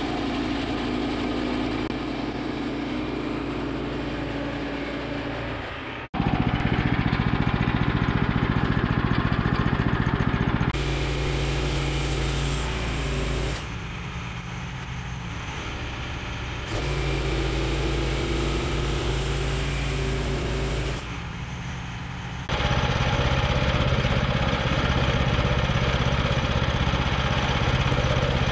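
Woodland Mills HM122 portable bandsaw mill's gas engine running steadily while the saw head is pushed along a log. The sound changes level and tone abruptly several times where the footage is cut.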